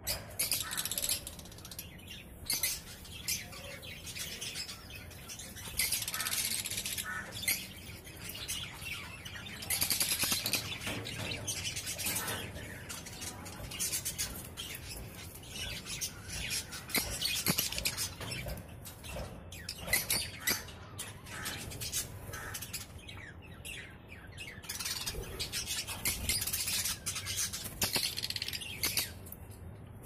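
A flock of small parrots, lovebirds and parakeets, chirping and chattering in an aviary, with many short high calls overlapping without a break.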